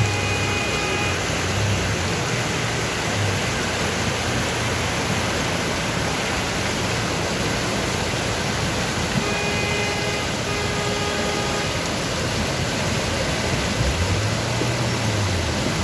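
Muddy floodwater rushing in a torrent down a steep cobblestone street torn up by heavy rain, a steady loud rush. A short pitched tone sounds about nine seconds in, and a low rising-then-falling tone comes near the end.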